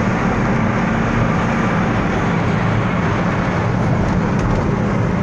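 Truck on the move: steady engine and road noise with a low drone.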